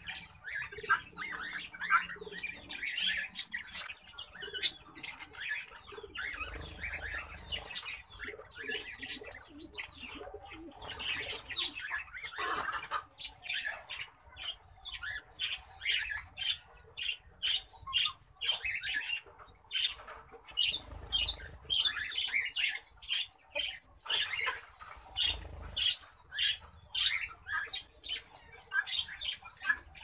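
Zebra finches calling: a long run of short chirps, several a second, with brief pauses between bouts.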